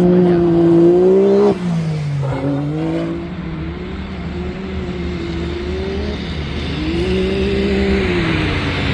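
Side-by-side UTV engine running hard under racing load, its revs dropping sharply about a second and a half in, then climbing and easing again several times as the throttle comes off and back on. A rushing noise grows near the end.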